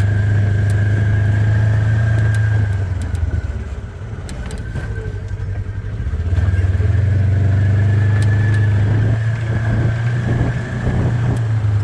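Four-wheeler (ATV) engine running as it is ridden along a fence line. It eases off about three seconds in and picks up again a few seconds later, with light rattling clicks over the engine note.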